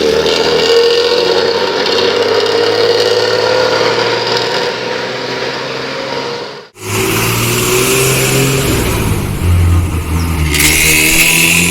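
Diesel bus engines through loud aftermarket exhausts. First one bus pulls away, its exhaust note rising slowly and steadily. After a sudden cut, another bus runs with a deep growling, snoring ('ngorok') exhaust, and a hiss joins in near the end.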